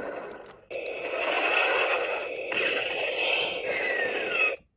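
Talking Optimus Prime toy playing an electronic sound effect through its small speaker: a harsh, noisy whir with a steady high tone and a tone that glides up and then down. It breaks off briefly about half a second in, then runs on until just before the end.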